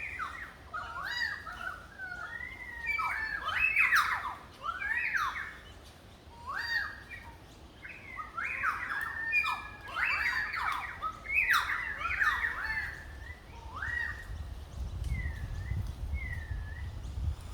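Currawong calling: bursts of loud, sweeping, ringing whistled notes that glide up and down, with a short lull partway through. A low rumble comes in near the end.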